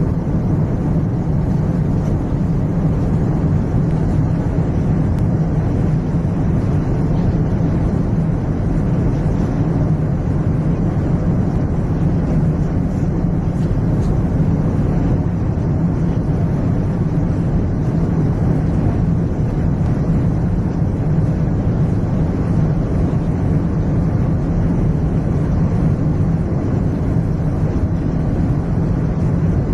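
Steady airplane cabin noise in flight: an even, unbroken rumble of engines and rushing air heard from inside the cabin, strongest low down.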